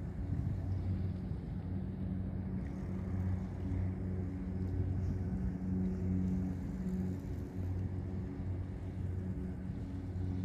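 A steady low mechanical hum: a deep drone with a fainter higher overtone that swells and eases slightly.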